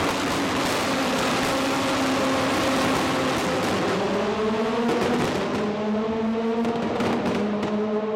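Formula racing car engines running with a steady pitch, which shifts about halfway through as one engine note drops and another climbs.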